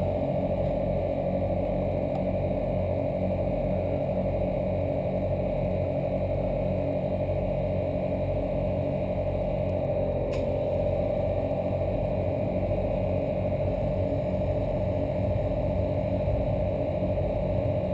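ARB CKMTA12 twin 12-volt on-board air compressor running steadily under load while inflating a tyre, a continuous motor drone with a wavering mid-pitched tone. A faint click comes about ten seconds in, where the tone dips slightly.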